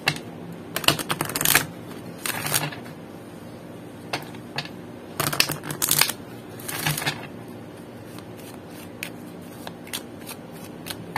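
An oracle card deck shuffled by hand: about four short bursts of cards sliding and riffling in the first seven seconds, then only a few light clicks and taps of the cards.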